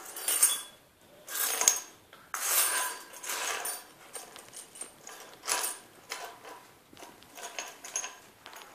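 A bunch of metal house keys jingling and clinking against each other and the stone tiles as a Labrador puppy chews, paws and drops them, in about five irregular bursts with short pauses between.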